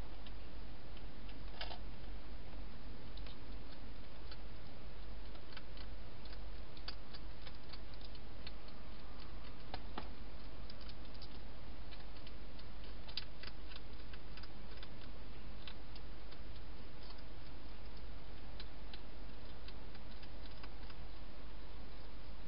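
A hedgehog eating in a plastic feeding box: irregular small clicks and crunches of chewing, over a steady low hum.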